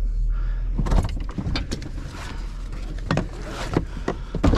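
Inside a pickup truck's cab while driving slowly: a steady low engine and road rumble, with scattered clicks and knocks from the cab.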